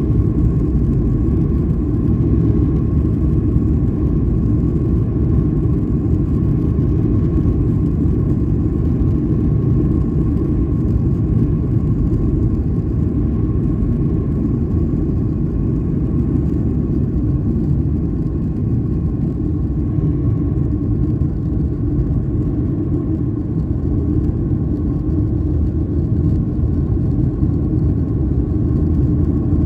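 Boeing 737-900ER's CFM56-7B turbofan engines at takeoff thrust, heard inside the cabin: a loud, steady rumble with a constant high hum, through the takeoff roll and liftoff into the climb.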